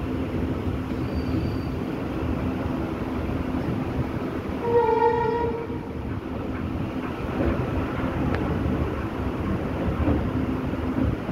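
Express train running on rails, heard from on board: a steady rumble of wheels on track, with one train horn blast of about a second near the middle.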